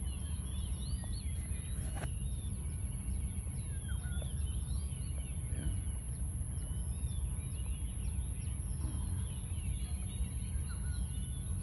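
Many birds chirping and whistling in short, quick calls that rise and fall in pitch, over a steady low rumble.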